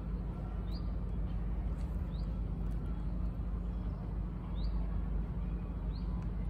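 Steady low rumble of city traffic, with a small bird chirping four times, short quick calls spaced a second or more apart.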